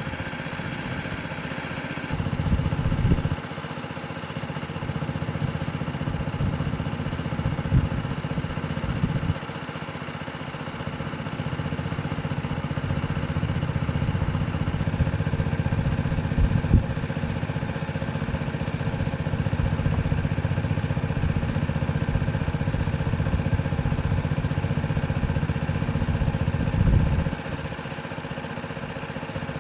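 Tractor diesel engine running steadily under load, with a few short knocks and clunks.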